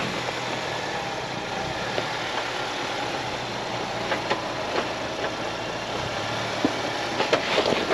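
Ford Bronco's engine idling as it crawls slowly down a rocky trail, a steady low hum. Now and then a short sharp click or pop of stones under the tyres.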